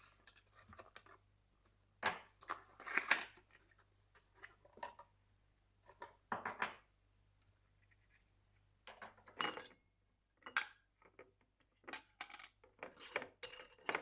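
Dishes and cutlery being handled: irregular clinks and knocks of crockery and metal utensils, in scattered clusters with quiet gaps between.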